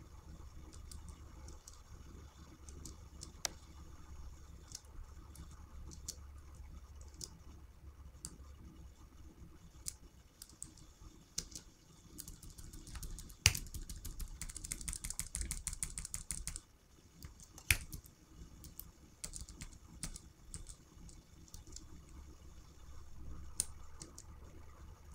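Computer keyboard keys tapped one at a time, with a quick run of rapid keystrokes about halfway through and a couple of harder single presses, over a steady low hum.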